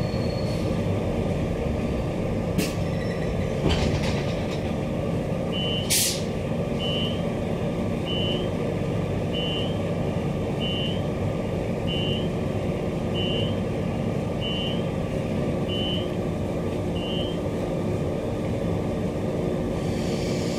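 Steady hum inside a stationary Queensland Rail EMU electric train car, with a couple of clicks, a short hiss about six seconds in, then a string of ten short high beeps about a second apart.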